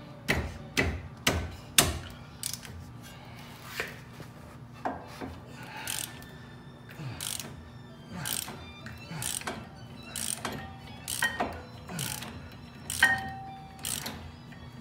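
Ratchet wrench clicking in repeated short strokes, roughly one or two a second, as a tight brake caliper bracket bolt is worked loose; the loudest clicks come in the first two seconds and again near the end.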